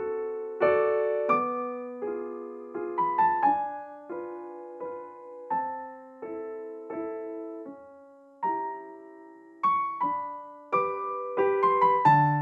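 Background solo piano music: a slow, unhurried melody of single struck notes, each left to ring and fade.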